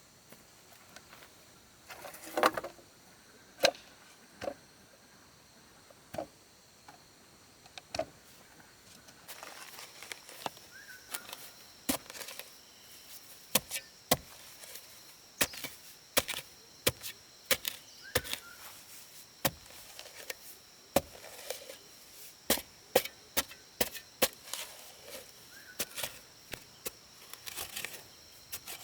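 A tool striking wood in sharp, irregular knocks, sparse at first and coming faster, often in quick runs, from about ten seconds in. Insects trill steadily behind them from about then on.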